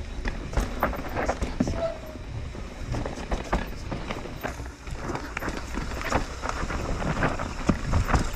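Full-suspension mountain bike ridden down a trail, heard from on the bike: steady wind and tyre rumble with frequent sharp knocks and rattles of the chain and frame over bumps.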